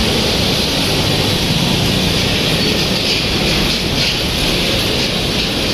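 Loud, steady road traffic noise with no clear single event.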